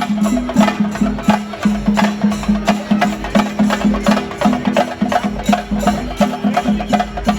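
Loud live procession music: fast, driving percussion with sharp strokes several times a second over a repeated low pitched note.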